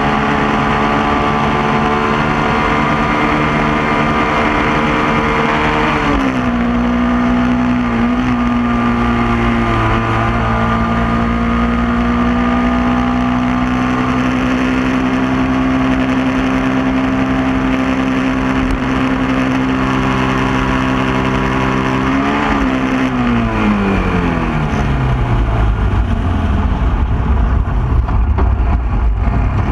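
Honda ATV engine running under way, loud and close. Its note drops sharply about six seconds in, holds steady for a long stretch, then falls slowly as the quad slows and starts to climb again near the end.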